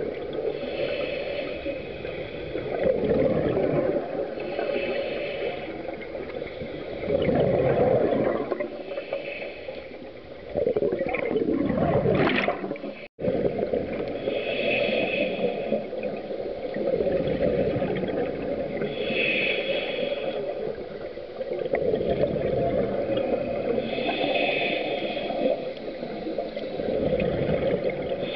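Scuba regulator breathing heard underwater: a hiss on each inhale about every four to five seconds, alternating with the rumble of exhaled bubbles. The sound cuts out for a moment just after the middle.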